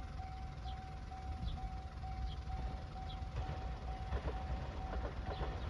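Japanese railway level crossing alarm ringing, its electronic tone pulsing steadily about twice a second to warn of an approaching train. From about three seconds in, the clatter of the oncoming train's wheels joins it.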